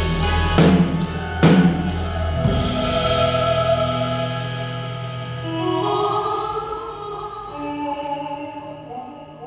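Live rock band ending a song. Drum and cymbal hits in the first two seconds sound over a held bass. After that come sustained keyboard and guitar chords with a few held notes, slowly fading out.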